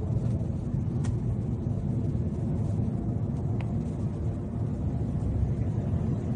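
Steady low rumble of a car running, heard from inside the vehicle, with two brief faint ticks, one about a second in and one about three and a half seconds in.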